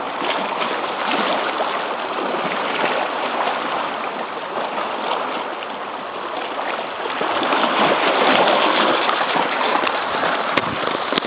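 Sea water washing and rushing against the rocky shore, a steady noise that swells louder about eight seconds in.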